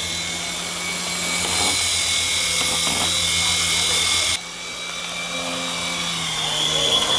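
Syma S109G mini toy helicopter's small electric motors and coaxial rotors running in flight, a steady high whine over a low hum. The sound drops suddenly about four seconds in, as the helicopter comes down near the floor, and the whine carries on.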